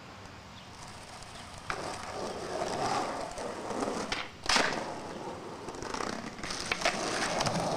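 Skateboard wheels rolling on concrete, growing louder, then one loud clack about halfway through as the board comes down after a jump. Rolling starts again near the end with a few small clicks.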